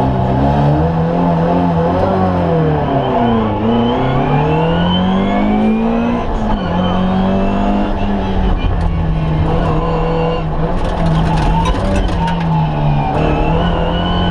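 Ford Escort Mk2 1300's four-cylinder engine heard from inside the cabin at full race use: its pitch drops to a low point about three and a half seconds in, climbs again, holds fairly steady through the middle with brief dips at gear changes, and rises again near the end. A short run of sharp clicks comes about eleven seconds in.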